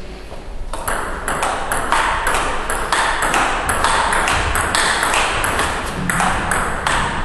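Table tennis rally: the celluloid ball clicking off paddles and bouncing on the table in a steady alternating rhythm, about three sharp clicks a second, starting about a second in.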